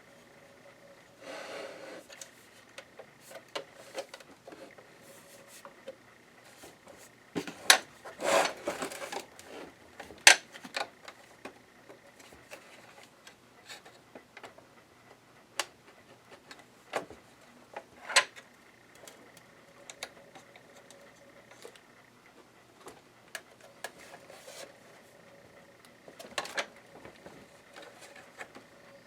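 Scattered clicks, taps and knocks of a Janome ME4014 sewing machine's casing parts and screws being handled while it is taken apart by hand, with short scraping or rubbing sounds. The sharpest knocks come about a third of the way in and again past the middle.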